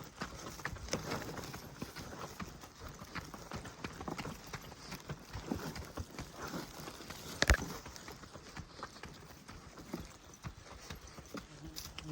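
Irregular footfalls on a forest track, with one sharp, louder knock a little past halfway.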